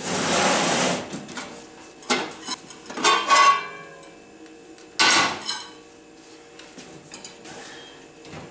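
Metal pot lid clanking as it is lifted off the pot in the oven, with ringing tones, then a sharp clank as it is set down on the gas stove's grate about five seconds in. The covered baking of the sourdough loaf is over and the lid comes off so the bread finishes uncovered. A rush of noise fills the first second.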